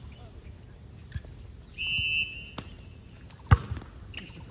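Sounds of a ball game on a court: a short, steady, high squeak about two seconds in, then a single sharp ball impact about three and a half seconds in, the loudest sound, over faint background voices.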